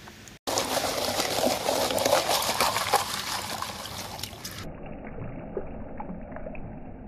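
Plastic gold pan of muddy gravel being worked under creek water: water sloshing and splashing, with many small clicks of grit and gravel against the pan. It starts suddenly about half a second in, then a little after halfway turns quieter and more muffled.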